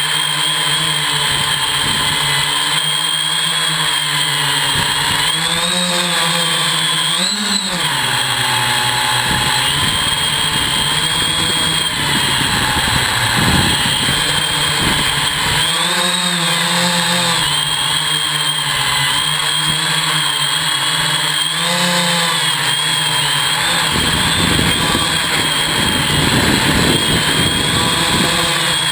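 Multirotor hexacopter's brushless motors and propellers whining in flight, heard close up from the frame. The pitch rises and falls briefly several times as the motors change speed, and a low rushing rumble comes and goes.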